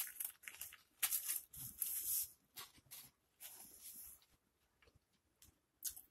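Close-miked wet chewing and mouth sounds of someone eating a barbecue pulled pork sandwich, coming in bursts through the first four seconds, then thinning to a few soft clicks.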